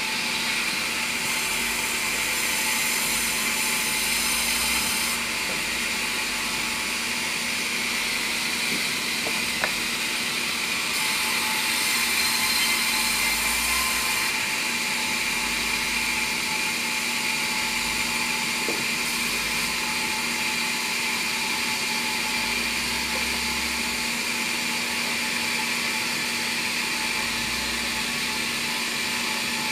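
Sawmill band saw running steadily with a constant whine, twice rising into a louder, hissier stretch as the blade cuts through timber. A single sharp click about ten seconds in.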